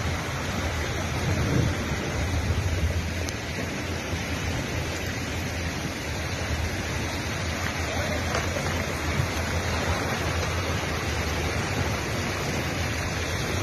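Muddy floodwater rushing through a street in a fast torrent, a steady unbroken rush of noise.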